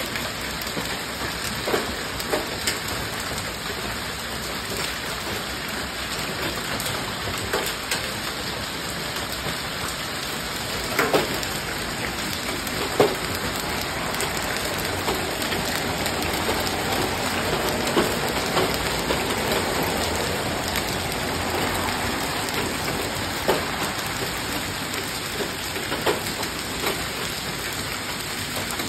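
A hailstorm with heavy rain: a steady hiss of rain on grass and concrete, broken by scattered sharp clicks of single hailstones striking.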